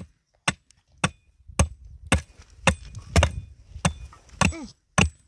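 Hammer striking an upright steel pipe in steady blows about two a second, ten in all, each with a short metallic ring, driving the pipe into the ground.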